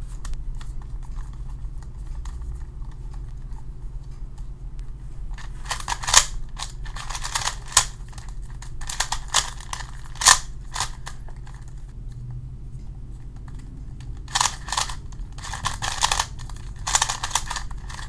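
Rubik's Speed Cube 2x2, a tiled plastic cube with a GAN core, being turned fast by hand in a speed solve: runs of quick plastic clicks from the layer turns. The clicking starts about six seconds in, stops for a few seconds, then picks up again.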